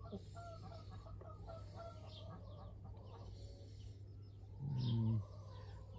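Chickens clucking softly, a run of short low clucks, with a steady low hum under them. About five seconds in comes a brief, louder low murmur from a person.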